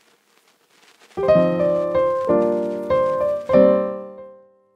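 Piano music: a short phrase of chords struck four times, the last chord ringing out and fading away.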